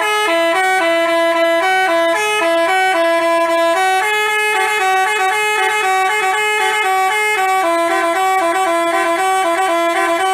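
Bus 'telolet' Basuri melody horn playing a tune of quickly changing notes, several horn tones sounding together.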